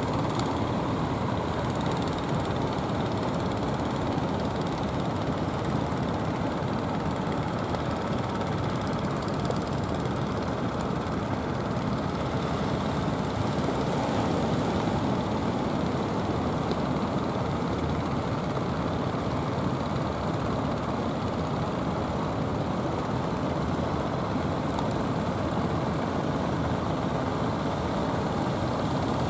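Steady drone of outrigger fishing boats' engines running out to sea, under a constant rush of wind and surf.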